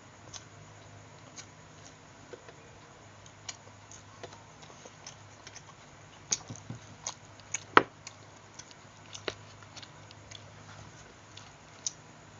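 Close-up eating sounds: scattered wet clicks and smacks of chewing food. They come irregularly, with a cluster of louder smacks in the second half.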